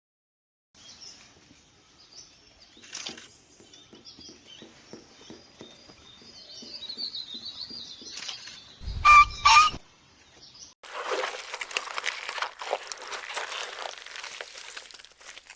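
Farm birds feeding: soft high chirps over light pecking and tapping, with two loud honk-like calls about nine seconds in. About eleven seconds in the sound cuts to dense crunching and rustling, as of feed being eaten.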